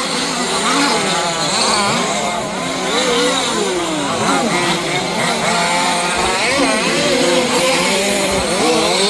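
Several 1/5-scale RC cars' small two-stroke petrol engines racing together, their pitches overlapping and rising and falling as the cars rev up and back off around the track.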